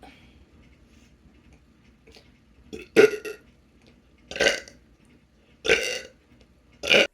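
A person burping: four short, loud burps, roughly one every second and a half, starting about three seconds in.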